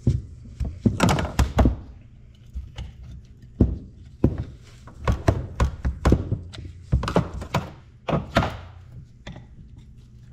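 Irregular sharp knocks and clinks of hand tools, a screwdriver and snap-ring pliers, against a hydraulic loader cylinder's steel gland end and a steel workbench, as the cylinder is being taken apart to get at its snap ring and seal.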